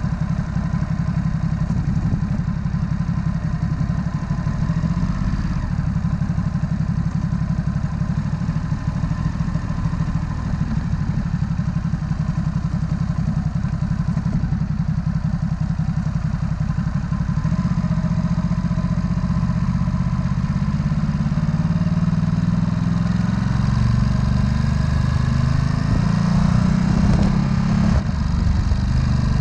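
Ducati SuperSport S's 937 cc L-twin engine running while the bike is ridden through town, a deep steady engine note whose pitch climbs under throttle about two-thirds of the way in and again near the end.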